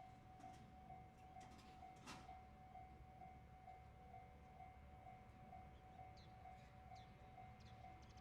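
Japanese railway level-crossing alarm ringing faintly, one electronic tone struck over and over about twice a second. A single sharp click sounds about two seconds in.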